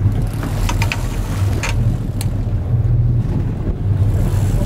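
Fishing boat's engine running steadily at low speed, with wind on the microphone and a few sharp clicks and knocks in the first half.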